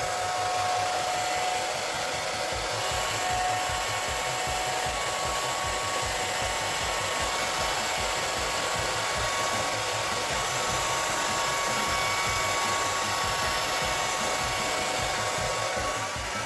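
Remington hair dryer with a diffuser attachment running steadily, with a faint steady whine from its motor; the level dips slightly near the end as the dryer moves away from the head.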